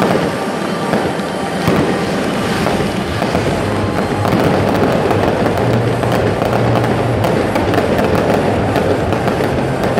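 A fireworks display going off in a dense stream of crackles and sharp cracks, with music playing under it.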